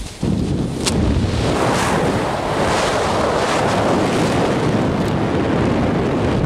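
Wind rushing over the microphone during parachute canopy flight. The steady rush dips for a moment at the start, then comes back louder and holds.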